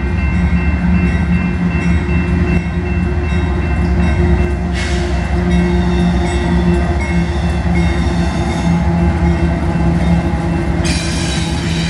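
Freight train with diesel locomotives passing close by at a grade crossing: a loud, steady engine and rail rumble, with a few steady high tones held over it.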